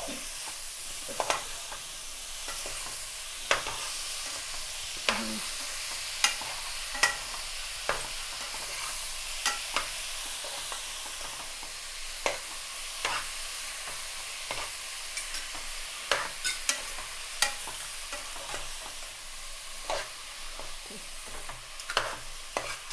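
Boiled cabbage sizzling in a pan of fried onion and masala as it is stirred in, the steady sizzle broken by a spoon knocking and scraping against the pan at irregular moments.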